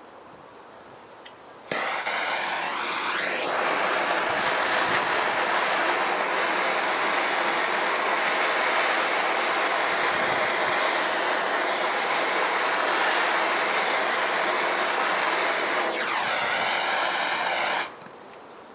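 MAPP gas torch flame hissing steadily as it burns oil off concrete. It comes on suddenly about two seconds in and cuts off suddenly near the end, with a sweeping change in tone as the flame is brought toward and away from the surface.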